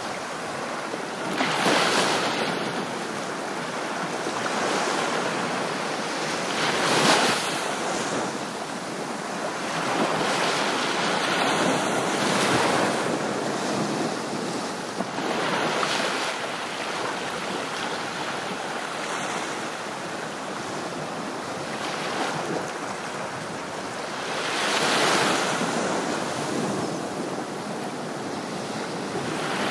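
Ocean surf, waves breaking and washing back, swelling louder every few seconds.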